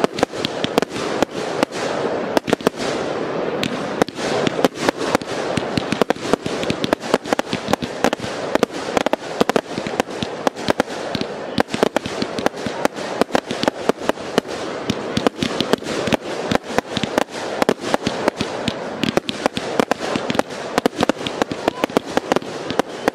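Fireworks batteries firing a dense, unbroken barrage of aerial shots: sharp bangs and bursts several a second, over a constant crackling wash.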